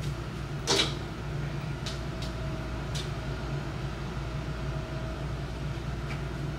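Dish towels being handled on an oven door handle: a brief scrape of cloth about a second in, then a few light taps, over a steady low room hum.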